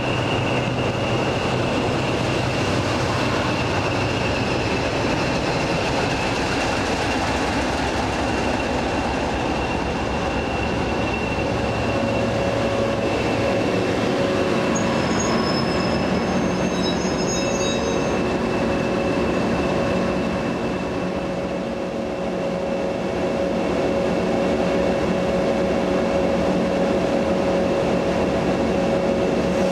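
English Electric Class 40 and Class 20 diesel locomotives running past close alongside. Their engines give a steady drone with a thin high whistle above it, the turbocharger whistle that earned Class 40s the nickname 'Whistlers'.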